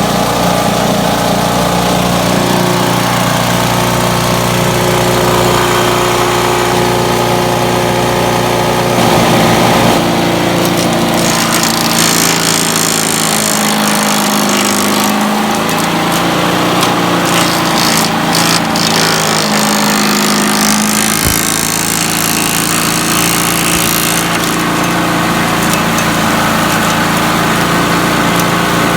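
Briggs & Stratton Quantum engine of an MTD Yardman petrol garden vacuum running steadily. Its note shifts twice in the middle, while louder rushing noise comes and goes above it.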